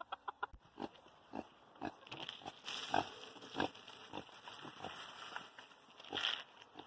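Faint, short, low grunting calls from farm animals, spaced irregularly, with some scattered rustling.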